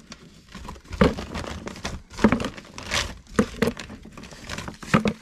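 Lumps of coal taken by hand from a plastic sack and dropped into a solid-fuel boiler's firebox: the sack rustles and the coal clatters in several separate handfuls.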